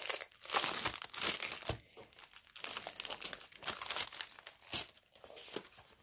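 Clear plastic wrapping crinkling and rustling in irregular bursts as a rolled diamond-painting canvas is drawn out of its sleeve, loudest about half a second in.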